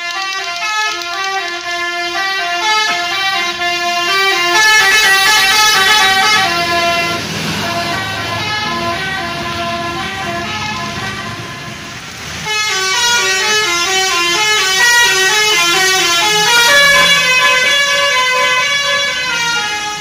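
Basuri telolet multi-tone bus horn playing a loud tune of quick, stepping notes. It eases off briefly about twelve seconds in, then starts up again.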